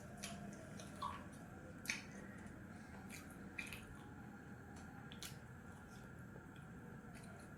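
A person eating quickly: faint chewing and wet, squishy mouth sounds, with scattered small clicks and smacks.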